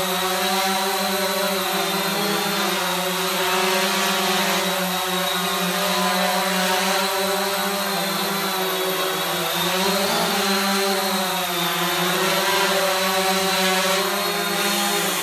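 Hobbyking Quanum Nova (Cheerson CX-20) quadcopter's brushless motors and propellers buzzing steadily as it hovers and manoeuvres, the pitch wavering slightly up and down with the throttle, with a brief rise about ten seconds in.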